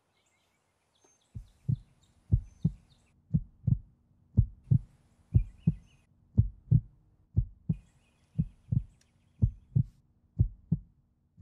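Heartbeat sound effect: pairs of low thumps, lub-dub, repeating about once a second over a faint steady hum, starting a little over a second in.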